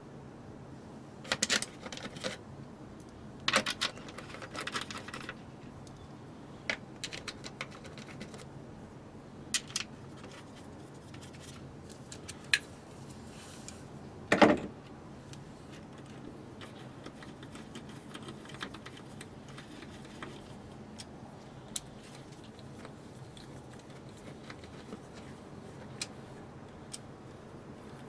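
Scattered metallic clicks and clinks of hand tools and fasteners being handled, in short clusters over the first half, with one louder knock about halfway through, then only sparse light ticks.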